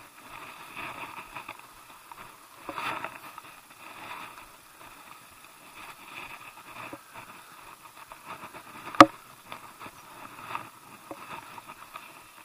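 Spinning reel being cranked to wind in fishing line, its gears whirring in spells. A single sharp click or knock about nine seconds in.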